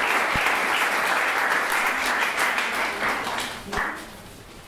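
Audience applause, dense clapping that fades away about three to four seconds in.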